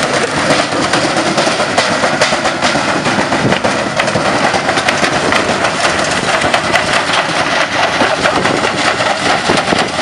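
Front-loading washing machine spinning with a stone loose in the drum: a loud, continuous rattling clatter of the stone hammering about inside while the unbalanced machine shakes and jumps on the ground.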